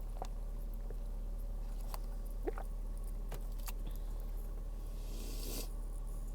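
Quiet eating sounds: scattered mouth clicks and chewing, with a brief squeak about two and a half seconds in and a short hissing noise about five seconds in.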